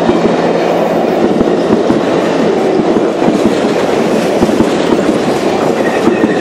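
Passenger train cars rolling past at speed: a steady rumble of steel wheels on the rails with many irregular sharp clicks.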